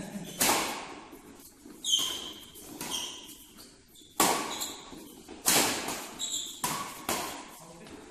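Badminton doubles rally: rackets striking the shuttlecock in sharp cracks roughly every one to one and a half seconds, echoing in a large hall, with short squeaks of shoes on the court between shots.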